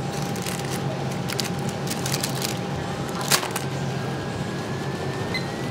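Steady room hum with a low drone, overlaid by scattered light clicks and crackles of eating and handling a paper basket liner, with a sharper click about three seconds in.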